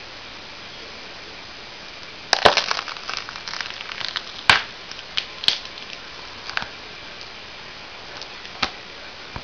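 A leather work boot squashing a green fruit against a hard floor: a sudden wet crunch about two seconds in, crackling for a couple of seconds, then a loud snap and a few scattered sharp cracks as the pulp gives way.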